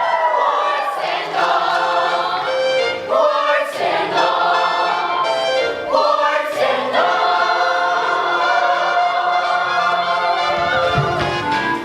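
Children's chorus singing a stage-musical number in unison, the melody moving in phrases with a long held note through the second half.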